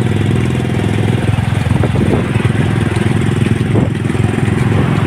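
A small engine running steadily close by at an even speed, with a fast, regular pulse and no revving.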